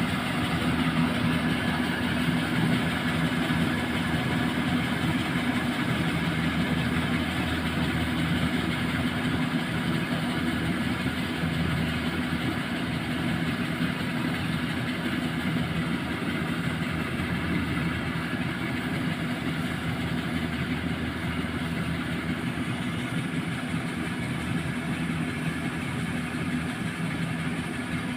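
Engine of a rice harvesting machine running steadily with a constant hum, slightly quieter toward the end.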